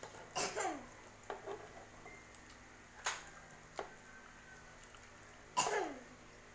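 Metal tongs clicking and scraping at a tabletop electric grill as sausages and pork are turned, a few sudden clicks and clatters, the loudest near the end, over a faint steady sizzle.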